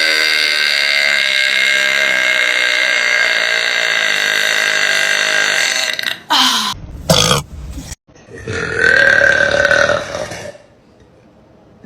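Women belching loudly: one long drawn-out belch that lasts about six seconds, two short belches, then another belch of about two seconds.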